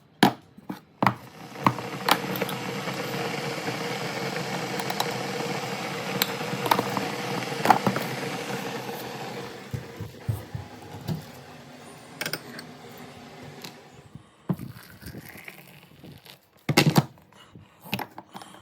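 A small kitchen appliance runs steadily for about eight seconds and then dies away, followed by scattered clicks and knocks of kitchenware.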